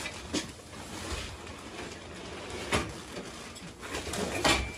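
Plastic-wrapped box spring being lifted and shifted upright against a wall: the plastic crinkles and scrapes, with several knocks and bumps of the wooden frame, the loudest near the end.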